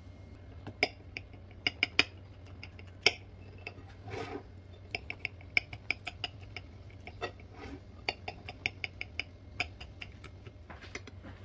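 A knife cutting a fried noodle pancake (martabak mie) on a plate, the blade clicking and knocking against the plate in many short, irregular taps.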